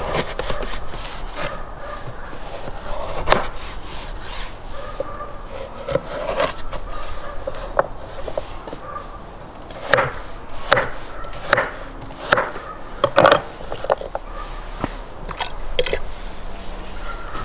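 Kitchen knife cutting carrots on a wooden cutting board: irregular knocks of the blade against the board, with scraping and rubbing as the pieces are moved.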